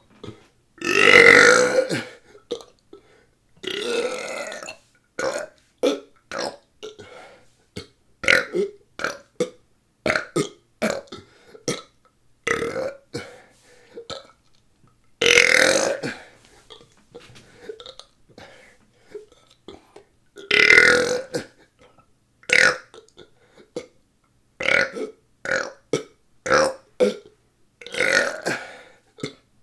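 A person belching over and over: a string of short, rapid burps with brief gaps between them, and a few longer burps of about a second each.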